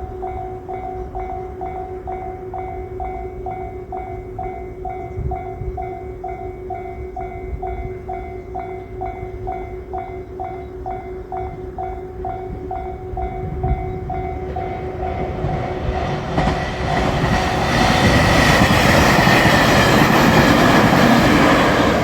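Japanese level-crossing alarm ringing with a quick, evenly repeating ding. From about 15 seconds in, the rushing of an approaching JR Shikoku 8000 series electric limited express builds over it, and the train passes loudly through the crossing in the last few seconds.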